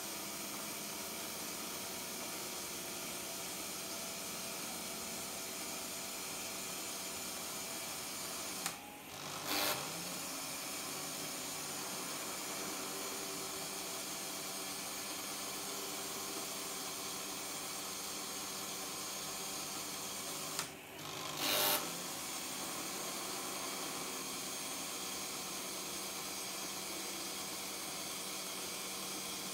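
Märklin H0 model railway running: a small electric motor whirring steadily. Twice, about twelve seconds apart, the sound drops for a moment and is then followed by a short, sharp burst of noise.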